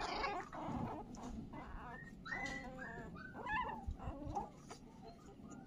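A young animal whimpering: a string of short, high, thin cries, thinning out towards the end, over a low rumble of wind on the microphone.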